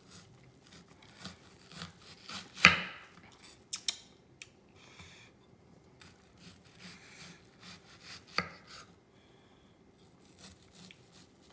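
Kitchen knife slicing through an onion, the blade knocking on the cutting board in irregular strokes, the loudest about a third of the way in.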